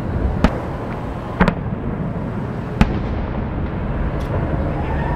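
Fireworks shells bursting almost a kilometre away: four sharp bangs, one of them doubled, over a continuous low rumble from the display.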